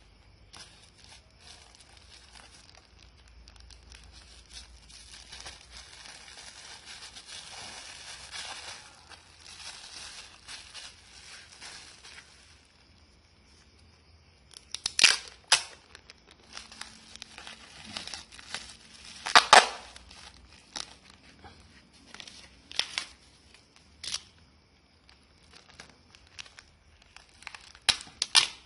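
Packing material crinkling and rustling as small gemstones are wrapped for shipping, steady for about twelve seconds, then a run of short, sharp tearing sounds, the loudest two about fifteen and nineteen seconds in.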